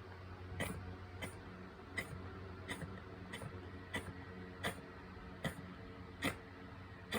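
Bichon Frise making about ten short, sharp breath sounds in a steady run, roughly one every 0.7 seconds. It is either a coughing fit or a reverse-sneeze episode; the owner can't tell which.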